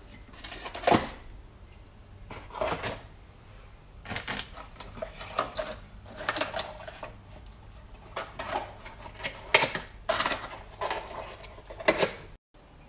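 Steel gears and parts of a Honda B-series manual gearbox being handled on a workbench: irregular metallic clinks and knocks, one every second or two.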